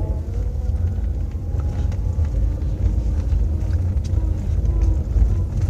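Small car's engine and tyres rumbling, heard from inside the cabin as it reverses along a rough road, with a faint wavering whine and a few light clicks.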